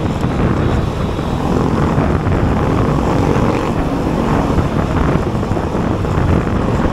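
Wind rushing over the microphone of a camera carried on a moving fixed-gear bicycle, with road noise, a steady loud low rumble throughout.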